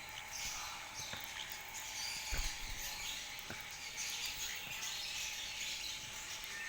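Caged lovebirds and budgerigars chirping and twittering together without pause, with a single knock about two and a half seconds in.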